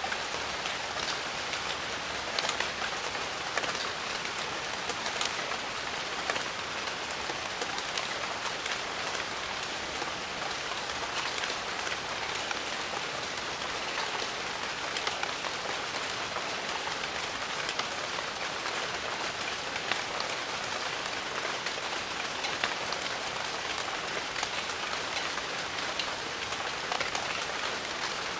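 Steady jungle rain: an even hiss of rainfall with many individual drops pattering and ticking on leaves and surfaces.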